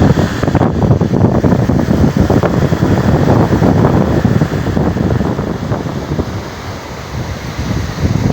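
Ocean surf breaking and washing in a steady rush. It eases about two-thirds of the way through, then swells again as the next wave comes in near the end.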